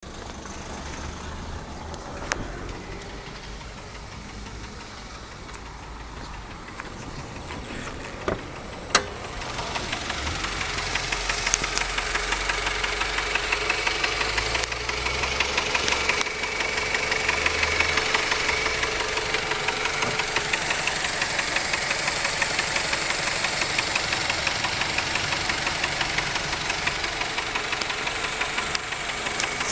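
Mazda 6 1.8-litre four-cylinder petrol engine idling with a steady, rhythmic knock, the fault the owner is recording. It is quieter at first, with a few sharp clicks, then gets louder and clearer about nine seconds in.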